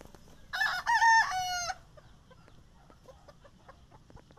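A rooster crows once, about half a second in: a short crow of just over a second that ends on a held, slightly falling note.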